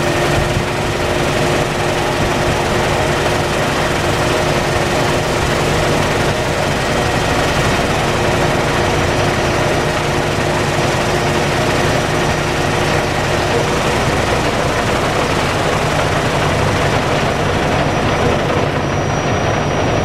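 Ready-mix concrete mixer truck's diesel engine running steadily and loud as it discharges concrete down its chute, with a few steady hums riding over the engine noise.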